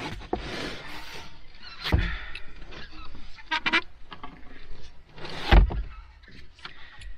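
Something being pushed back into place inside a car: rustling and scraping, with two heavy thumps, one about two seconds in and one about five and a half seconds in.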